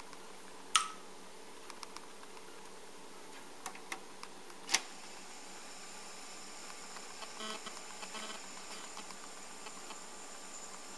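Two sharp clicks, about one and five seconds in, with a few smaller ticks over a faint steady hiss.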